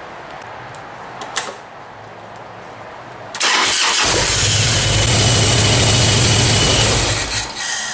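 Harley-Davidson big-twin V-twin cranked by its electric starter, catching about three and a half seconds in and then running with a strong, steady low note for a few seconds. The battery is weak: cranking voltage dropped to just over 8 volts, a sign to charge it and retest.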